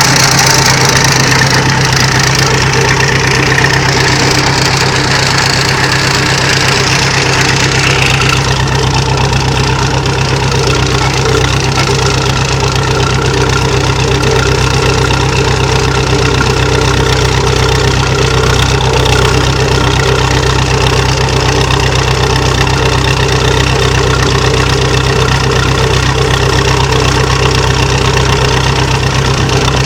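Massey Ferguson 130 tractor's four-cylinder Perkins diesel running steadily as the tractor drives along, heard from on board.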